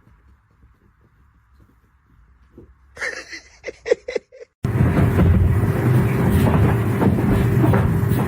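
A loud, steady mechanical rumble with a constant hum starts abruptly about four and a half seconds in, after a few soft knocks and rustles over a faint hiss.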